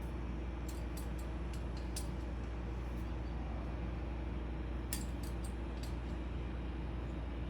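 Light metallic clicks and clinks of Knipex pliers working on an AN line fitting, a quick cluster about a second in and another around five seconds in, over a steady low hum.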